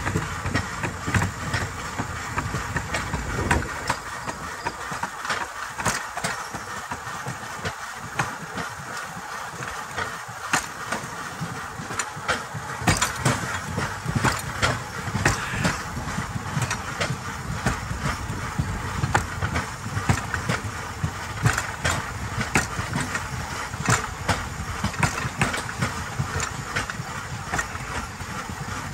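Rail bike's wheels rolling along the rails: a steady rumble and rattle with many irregular clicks and knocks.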